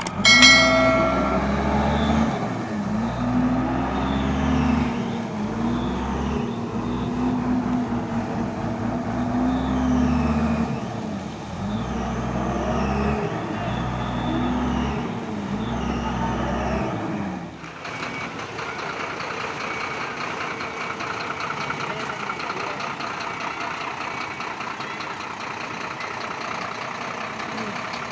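Heavy vehicle engine revving up and down over and over, every couple of seconds, then settling about two-thirds of the way in to a steady, even running sound.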